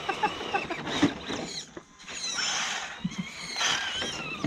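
1/10-scale RC rock crawler trucks' electric motors whining, rising and falling in pitch with the throttle, with a few knocks from the trucks on the rocks.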